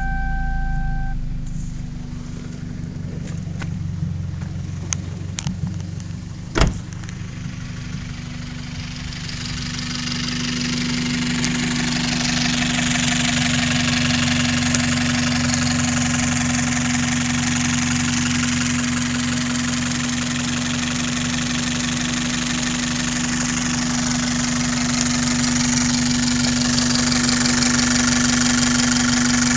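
Toyota 5S-FE inline-four engine running with a steady hum and a strong steady tone, while a broad hiss builds from about nine seconds in and then holds steady; this is the weird noise the owner is asking about. A single sharp click comes between six and seven seconds in.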